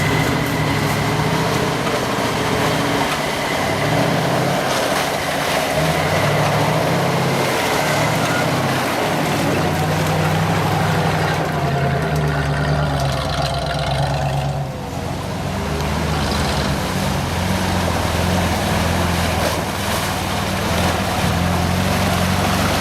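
Off-road truck engine running hard, its pitch stepping up and down, over a steady rushing noise. It eases off briefly about fourteen seconds in.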